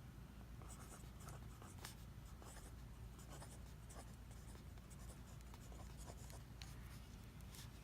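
Faint scratching of a pen on paper: a hand drawing in short, quick strokes over a low steady room hum.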